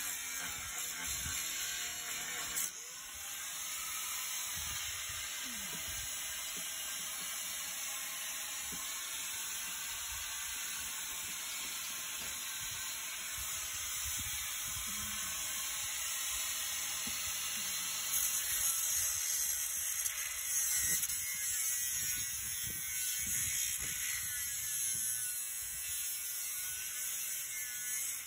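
Handheld corded grinder working a metal part, a steady high grinding hiss that dips briefly a few seconds in.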